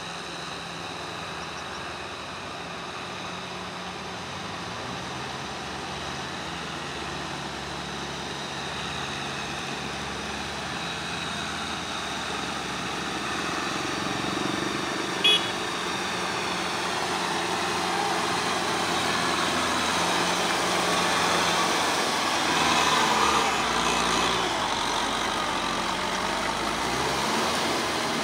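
Kubota tractor's diesel engine running steadily under load as it pulls a rear rotary tiller through a flooded rice paddy, growing gradually louder. A brief sharp sound about halfway through.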